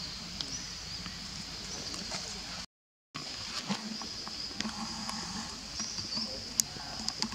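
Forest ambience with a steady, high-pitched insect buzz and a few faint chirps, plus scattered sharp little clicks, more of them near the end, as a young macaque picks at and eats seeds. The sound cuts out completely for about half a second, roughly a third of the way in.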